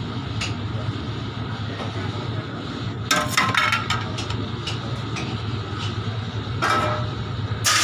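A steady low hum in a kitchen, with sharp clinks and clatter of kitchenware about three seconds in and again twice near the end.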